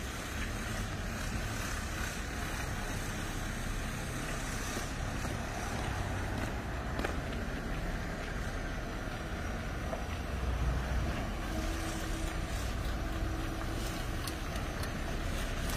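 Sleeper coach bus engine running as the bus pulls slowly out of a yard: a low steady rumble that swells a little about ten seconds in.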